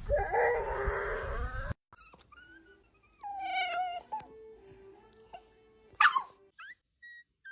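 Dogs yawning with whiny squeaks, several short clips in a row: a loud wavering yawn for the first couple of seconds, one that slides down in pitch a little after three seconds in, and a short loud one about six seconds in.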